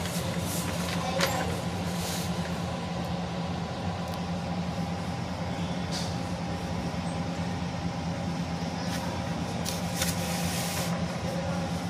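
Steady background hum, with a few brief rustles and clicks around the start, about halfway through and near the end.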